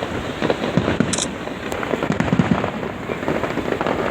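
Fireworks going off: a dense, continuous crackle of rapid sharp pops, with a brief high whistle about a second in.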